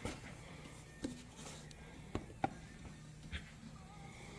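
A few light clicks and knocks of motorcycle wheel parts being handled, spaced out over a quiet room.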